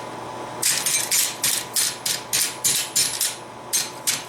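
Hand hammer striking hot steel on an anvil in a quick, even run of blows, about four or five a second, with a brief pause near the end.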